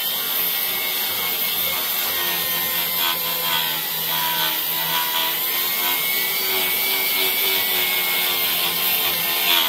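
Die grinder running steadily, its red sectioned abrasive buff scrubbing against the aluminum combustion chamber of a cylinder head. This is the final polishing stage, taking the chamber toward a high, near-mirror finish.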